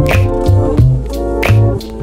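Background music with a steady beat: drum hits, a pulsing bass line and sustained synthesizer-like chords.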